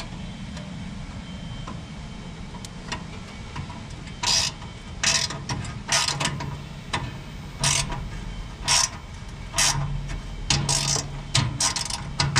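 Hand socket ratchet tightening a screw on a gas grill: a run of short ratcheting strokes, irregularly spaced, starting about four seconds in.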